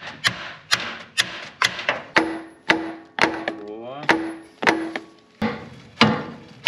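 A hammer striking steel parts under a truck in a steady series of blows, about two a second. Several blows leave a ringing metallic tone.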